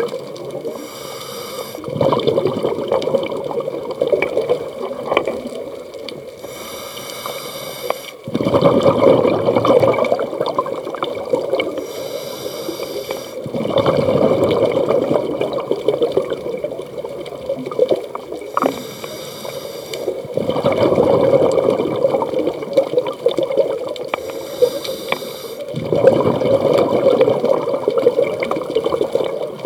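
Scuba diver breathing through a regulator underwater. Each breath is a short hissing inhale, then a longer gurgling burst of exhaust bubbles, about five breaths in an even rhythm.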